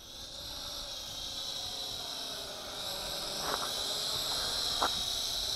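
Syma X8SW quadcopter's motors and propellers whining steadily at a high pitch, growing louder as it flies in closer. Two faint clicks come in the middle.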